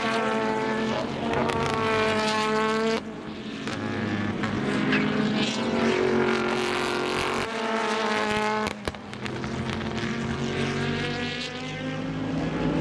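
Super GT race cars accelerating past one after another, their engine notes climbing in pitch and breaking off sharply a few times as each car comes through.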